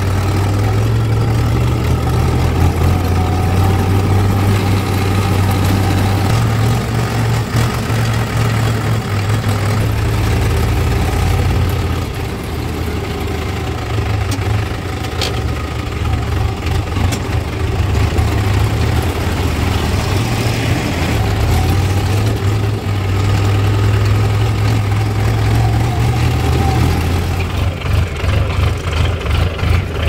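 Tractor diesel engine running under way, heard close up from the driver's seat: a steady deep engine drone that eases off slightly about twelve seconds in and picks up again.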